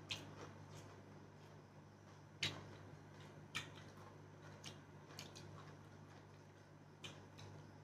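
Quiet eating with the hands: about half a dozen soft, scattered clicks and smacks of mouth and fingers on food and plates, the loudest about two and a half seconds in, over a low steady hum.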